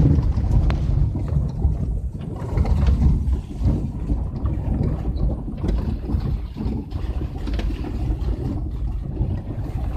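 A car driving along a road, heard from inside: a steady low rumble of engine and tyres.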